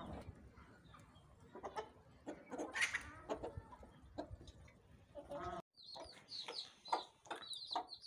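Chickens clucking sporadically. About halfway through this gives way to newly hatched chicks peeping: rapid high cheeps, each falling in pitch, about four a second.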